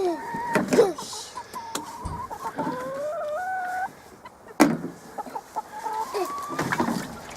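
Domestic chickens clucking, with short calls throughout and one long drawn-out call in the middle that steps up in pitch. A single sharp knock a little past halfway.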